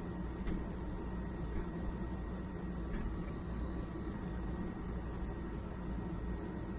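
A steady low machine hum, even throughout, with a couple of faint light clicks.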